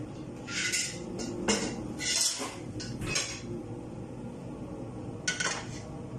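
Cookware handled on a gas stove: about five short clatters and scrapes of a dish and a wok against the metal grate.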